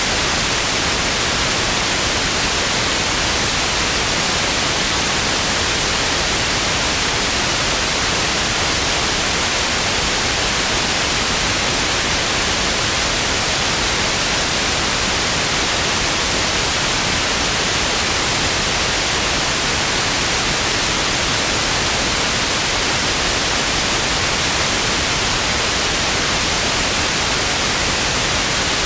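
Television static: a steady, loud hiss of white noise that does not change.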